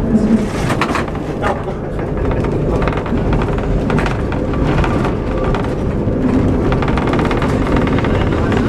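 Lisbon tram running along its street track, heard from on board: a steady low rumble with frequent rattles and clicks of the wheels on the rails.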